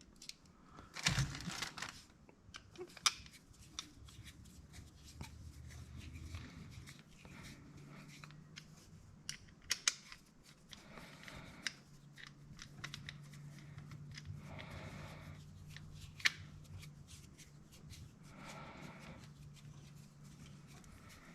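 Faint, scattered small metal clicks and scrapes of hand-tool work as the faceplate bolts of a Proto 5449 half-inch ratchet are fitted and tightened. A faint steady hum joins about a third of the way in.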